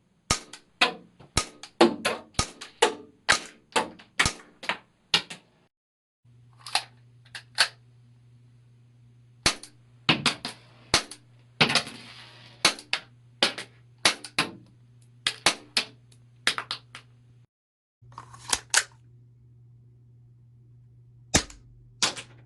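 Tanaka P226 MK25 cap-firing model gun shooting caps: a string of sharp cracks, roughly two a second, in several runs broken by short pauses.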